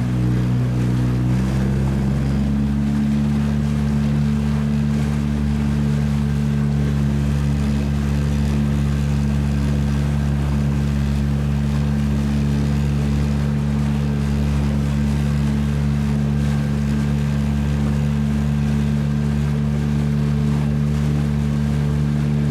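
Motorboat engine running steadily under way; its note steps up about two seconds in, then holds even.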